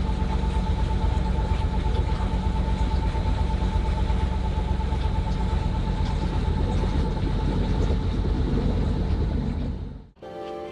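Sailboat's engine running steadily under way, a low drone with a steady whine over it. It stops abruptly near the end, where music takes over.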